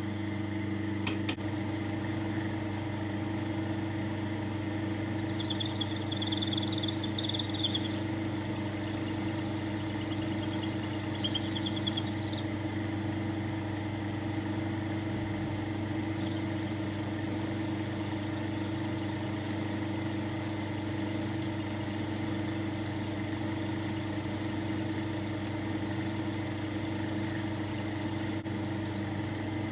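South Bend metal lathe running steadily with an even motor hum during a thread-cutting pass on a small screw. A faint high squeal comes twice, around six and eleven seconds in.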